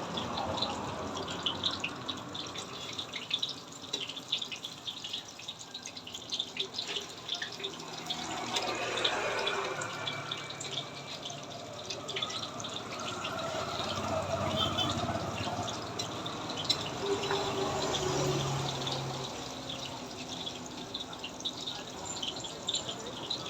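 Banana turon frying in hot oil: a steady sizzle with many small, scattered crackles and pops.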